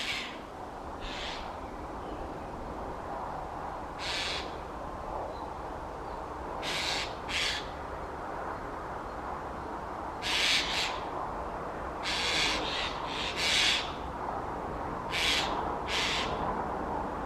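A bird giving short, harsh calls, singly or in quick pairs, every one to three seconds, over a steady low background rush.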